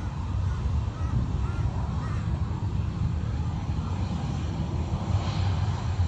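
Distant jet airliner's engines at takeoff power during its takeoff roll: a steady low rumble. A few short bird calls sound in the first couple of seconds.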